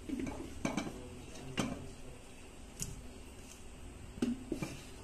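A metal spoon clinking and knocking against a steel cooking pot while chicken pieces are spooned onto rice: half a dozen sharp, irregular clinks.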